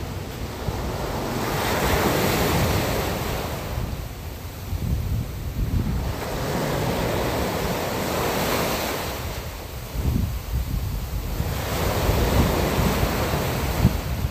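Sea surf washing in on a shallow sandy beach, each wave swelling and fading, three times about five seconds apart. A low rumble of wind buffets the microphone underneath.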